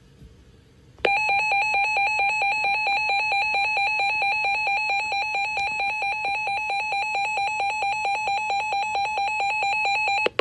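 An emergency alert receiver's electronic alarm tone: a shrill beep pulsing rapidly and evenly, several times a second. It starts about a second in and cuts off suddenly near the end. It signals that a new severe weather warning is about to be broadcast.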